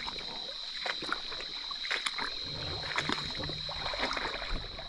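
Water sloshing and splashing with scattered knocks and clicks as people wade and handle fish in shallow water, over a steady high-pitched drone.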